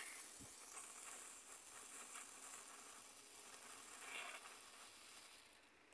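Faint hiss of a small gold-rain firework spraying sparks, dying away near the end.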